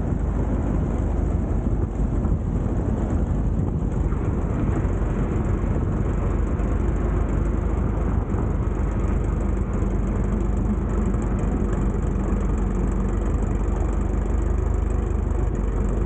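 Cessna 172 Skyhawk II rolling out on the runway after touchdown: a steady rumble of the four-cylinder engine at low power, with tyre and wind noise. The wind rush on the outside-mounted microphone eases over the first couple of seconds as the plane slows.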